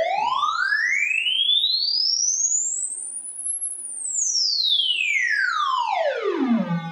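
Band-limited square wave from a Csound BLIT (band-limited impulse train) oscillator sweeping smoothly up in pitch from a low buzz to a very high whistle over about three and a half seconds, then gliding back down. Its overtones thin out as it climbs, leaving a near-pure tone at the top.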